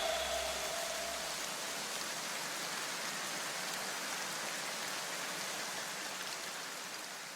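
The tail of music dies away into a steady, even hiss like rain falling, which slowly fades toward the end.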